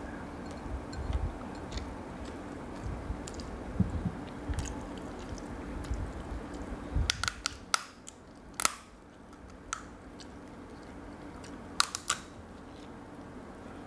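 Mouth chewing, then sharp cracks and clicks as the shell of a cooked spiny lobster is pulled apart by hand, loudest from about seven to nine seconds in and again about twelve seconds in.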